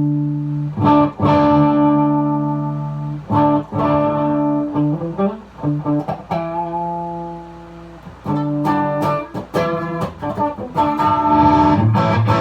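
Electric guitar chords played through a Blackstar tube amp's overdrive channel with the voice switch off and the guitar's volume rolled back. Each chord rings out and decays, with quieter held notes about six seconds in.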